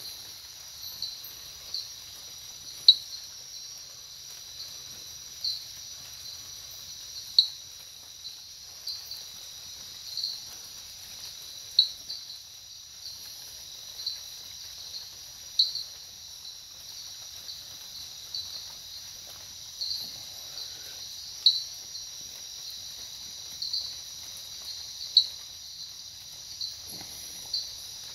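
Night insect chorus: a steady high-pitched trill from many insects, with louder single chirps standing out every few seconds.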